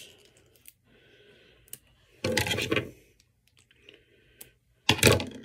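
Scissors cutting open the plastic packaging of a lip gloss tube. Light clicks, then two loud crackling bursts of plastic, one a little over two seconds in and a shorter one near the end.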